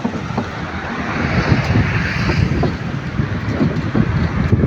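Sea surf washing onto a beach, swelling a second or two in as a wave breaks, with wind buffeting the microphone.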